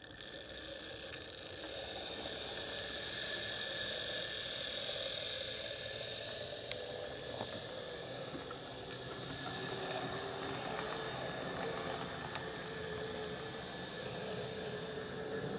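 Model locomotive running: the motor and gears of an HO brass Bowser 4-8-2 Mountain steam locomotive give a steady whine, with a few faint clicks of wheels on track.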